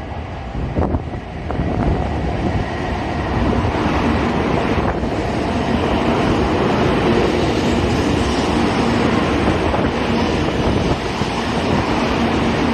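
A train running: a loud, steady rush and rumble that builds over the first couple of seconds and then holds, with wind buffeting the microphone.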